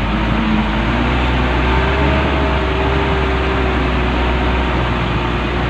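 Isuzu Elf truck's diesel engine running hard under load, hauling 9 cubic metres of sand uphill. It makes a steady deep drone, and a whine rises slightly over the first two seconds, then holds steady.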